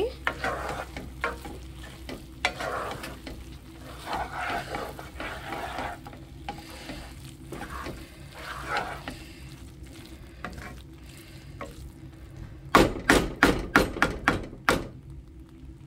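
A spatula stirring and scraping semiya (vermicelli) upma around a nonstick pan, with the food sizzling on the heat. Near the end comes a quick run of sharp knocks.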